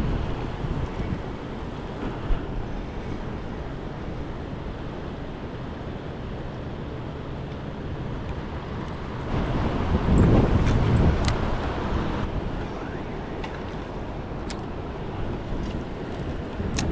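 Wind rumbling on the microphone over the steady rush of the Lower Niagara River's fast current, swelling louder for about two seconds around ten seconds in.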